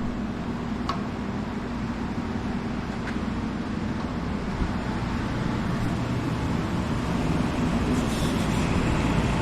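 Gas furnace running: a steady rushing noise over a low hum that slowly grows louder.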